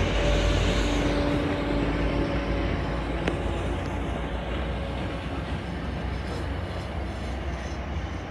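MBTA commuter rail bi-level coaches rolling past on the rails, a steady rumble of wheels and track that fades as the cab car at the end of the train moves away.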